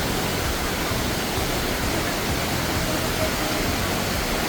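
Steady rush of falling water from a large waterfall, an even, unbroken wash of noise.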